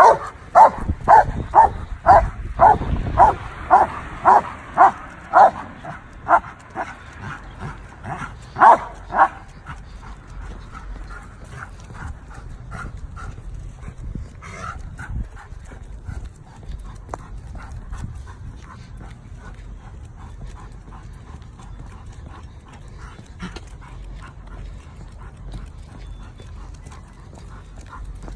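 A dog barking in a rapid series, about two barks a second for the first six seconds, with a few more barks around eight to nine seconds in. After that it is quieter, with faint regular footsteps on pavement.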